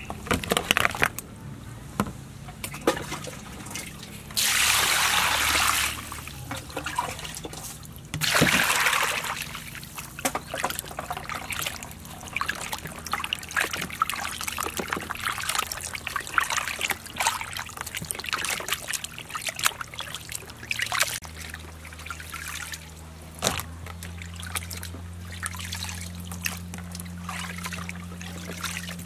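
Water poured into a plastic basin twice, for a second or so each time, then hands sloshing and rubbing raw quail in the water, with small irregular splashes and drips.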